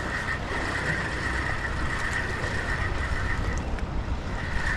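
A fishing reel being wound in steadily while fighting a hooked fish, a continuous wavering high whir, over wind buffeting the microphone and surf.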